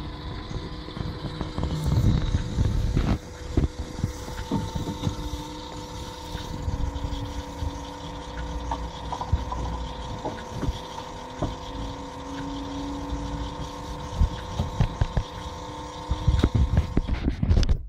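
A steady droning hum holding a few fixed pitches, over low rumble and scattered knocks from the microphone being handled.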